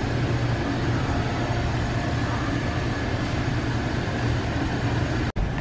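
Steady room noise of a large warehouse store, an even hiss over a low, constant hum like ventilation or refrigeration. It breaks off for an instant near the end.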